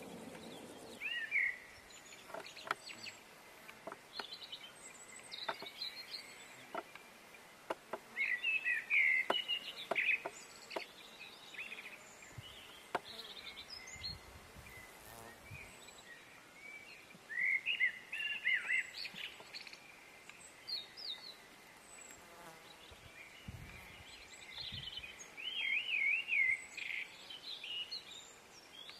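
A small songbird singing quick warbling phrases in four bouts several seconds apart, with scattered short clicks and a faint outdoor hiss between them.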